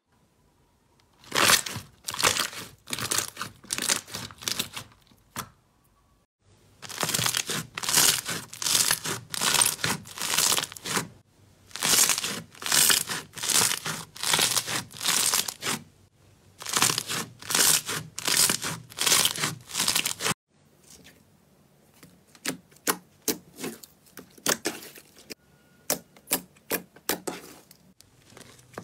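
Slime being pressed and squeezed by hand, giving a string of sticky crackling pops about two or three a second, in runs of several seconds with short pauses. From about two-thirds of the way through, the pops turn into sharper, thinner clicks.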